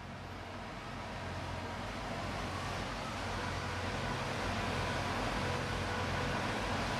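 Steady drone of heavy construction machinery engines under a broad hiss, fading in over the first few seconds and then holding level.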